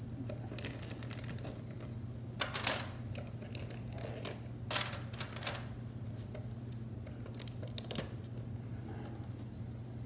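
LEGO bricks being handled and pulled apart: scattered plastic clicks and clacks, irregular and a few per second at most, over a steady low hum.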